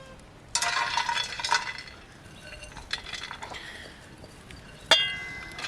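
Dishes and utensils clinking and clattering: a rattle of ringing clinks for about a second and a half, a few light taps, then one sharp ringing clink near the end.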